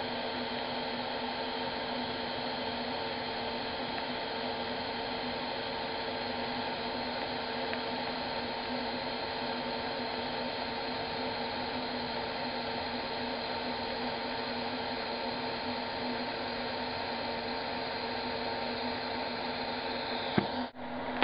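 DC TIG welding arc, lift-arc started from a Harbor Freight 91110 110 V inverter stick welder converted to TIG, running at about 55 amps: a steady buzzing hiss with a constant hum. It cuts off suddenly near the end as the torch is lifted off, followed by a couple of clicks.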